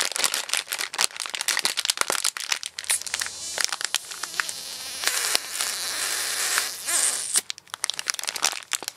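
A puffed-up plastic snack bag being squeezed and handled, crinkling. Dense crackles come first, then a steadier stretch of rustling in the middle, then scattered crackles again near the end.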